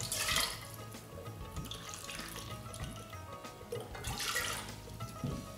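Water poured from a plastic measuring cup into a metal pressure cooker pot: two short pours, each about half a second, one at the start and one about four seconds in.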